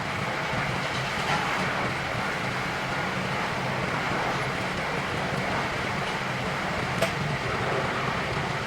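A steady engine-like machine noise running throughout, with a light click about a second in and a sharper click about seven seconds in.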